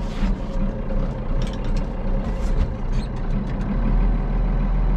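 Ford tractor's diesel engine idling steadily just after a cold start on a frosty morning, being left to warm up, heard from inside the cab. A few light clicks and rattles come through in the first few seconds.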